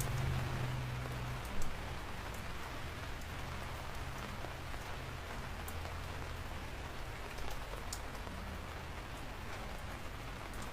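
Steady rain with individual drops ticking through it. A low rumble fades out in the first second and a half, and one louder tick comes about a second and a half in.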